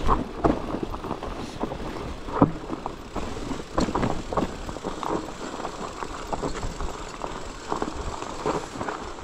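Loaded bikepacking bike riding over a rough trail: irregular knocks and rattles from the bike and its gear over a low rumble of tyres on rock and dirt, with a few sharper jolts.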